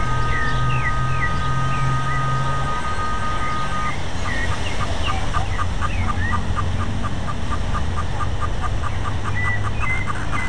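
Strong wind tossing tree foliage and buffeting the microphone with a steady low rumble. A steady high whistle cuts off suddenly about four seconds in, after which a fast, regular pipping of about five a second runs on. Birds chirp throughout.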